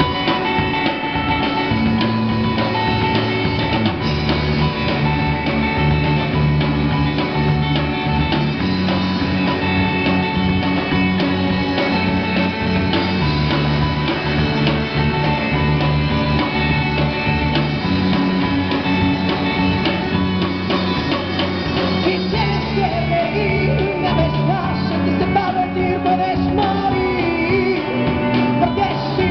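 Live rock band playing electric guitars, drums and keyboard, amplified and loud. A singer's voice comes in over the band for the last several seconds.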